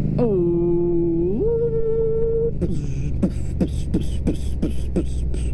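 A man's voice making vocal noises: a long held hum that steps up in pitch partway through, then a quick run of short beatbox-like sounds, each falling in pitch, about three a second. A steady low engine rumble runs underneath.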